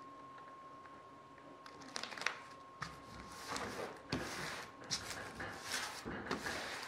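Hands rubbing and smoothing clear plastic protective film over a sheet-aluminium nose-skin blank, giving irregular crinkling rustles and soft scrapes with small clicks that start about two seconds in and grow busier. A faint steady high hum is audible before the rustling begins.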